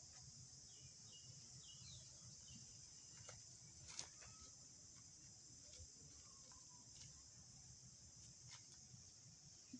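Faint outdoor background: insects keep up a steady high-pitched buzz, with a few faint chirps in the first two seconds and scattered soft clicks, the sharpest about four seconds in.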